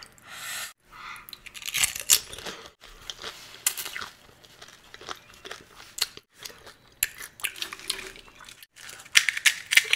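Pani puri being eaten close to the microphone: crisp hollow puri shells crunching and being chewed, with sharp cracks and crackles coming in irregular clusters.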